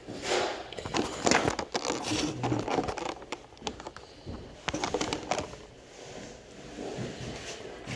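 Close handling noises: irregular rustling and scraping with many sharp clicks.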